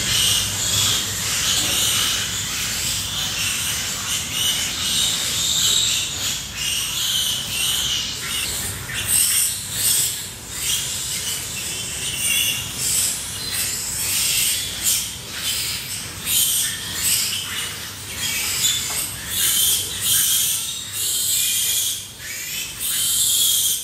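Pig barn ambience: a dense, continuous chorus of high chirps and squeaks over a low steady hum.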